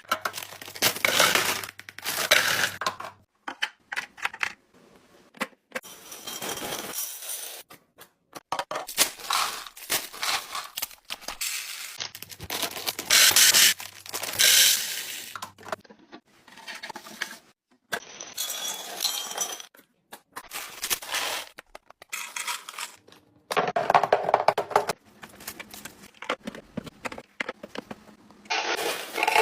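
Groceries and containers being handled: packaging crinkling and rustling, with clinks and light knocks as items are set down, in short separate bouts.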